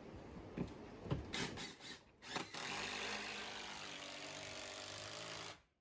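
A few knocks of the board being handled, then a cordless drill runs steadily for about three seconds, driving a screw through a sheathing panel into the wood frame, and stops suddenly near the end.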